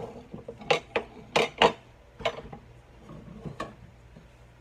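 Pots and kitchen utensils clattering off to the side: a run of about six sharp knocks and clinks, the loudest close together in the first two seconds and fainter ones after.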